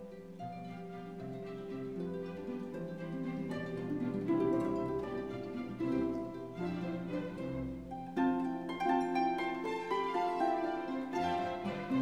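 Instrumental background music played by string instruments, with held notes changing every second or two.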